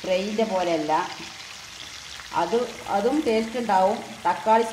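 Marinated prawns shallow-frying in hot oil in a pan, sizzling, as a wooden spatula stirs and turns them, with a voice speaking over the frying.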